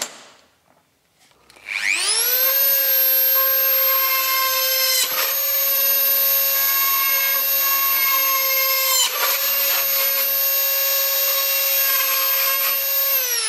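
Small pen-style rotary tool (mini drill) spinning up, then running at a steady high-pitched whine while its thin bit drills a rivet hole into an aluminium panel. It dips briefly twice, then winds down at the end.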